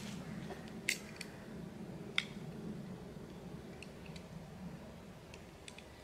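Light clicks and ticks from handling a small folding pocket knife with a built-in fire steel: three sharper clicks in the first couple of seconds, fainter ones after, over a steady low hum.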